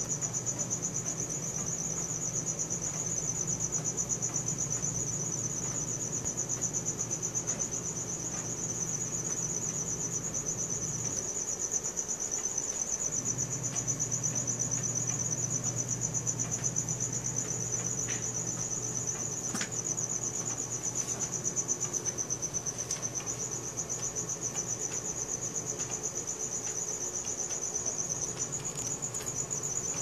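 Crickets chirping at night in a continuous, rapidly pulsing high-pitched trill. A low steady hum sits underneath and briefly drops out about twelve seconds in.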